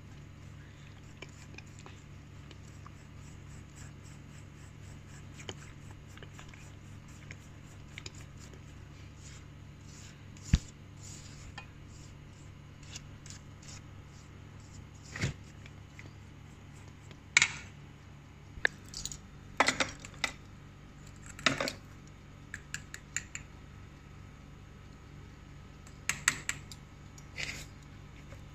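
A plastic spoon stirring mashed bananas into creamed butter and brown sugar in a stainless steel mixing bowl, knocking and scraping against the metal side. The knocks are scattered, a few sharp clicks at first and more often in the second half, over a low steady hum.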